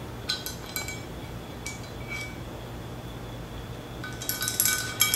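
Light metallic clinks of a screwdriver shaft against the aluminum transmission valve body and the valve in its bore: a few scattered clinks, then a quick run of clicking taps with a slight ring near the end.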